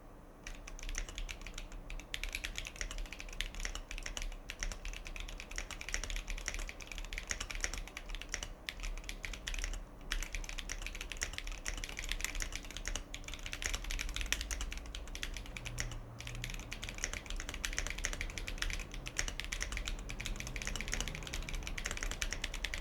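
Continuous fast typing on a mechanical keyboard fitted with Glorious GPBT PBT keycaps: a dense, steady run of keystroke clacks with a couple of brief pauses.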